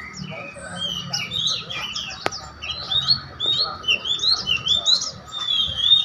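Many small caged songbirds chirping together in quick, overlapping short chirps, growing busier after the first second. A single sharp click sounds a little past two seconds in, over low voices murmuring.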